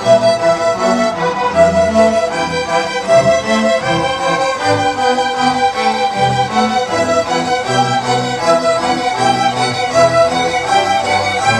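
A children's school orchestra playing a tune live, violins and other bowed strings carrying the melody over lower string notes.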